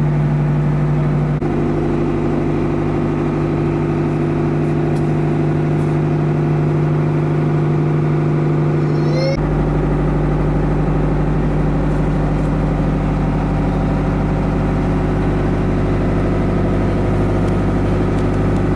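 Wooden river barge's engine running steadily, heard from inside the timber hull as a low, even hum; its tone shifts slightly about a second in and again around halfway.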